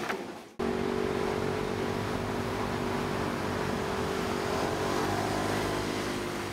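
Steady city traffic noise: a motor vehicle's engine hum over road noise, starting abruptly about half a second in.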